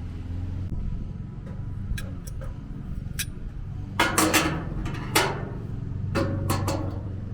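Metal grill parts being handled during reassembly: a few light clicks, then several short, loud clanking clatters about four, five and six seconds in, over a steady low background rumble.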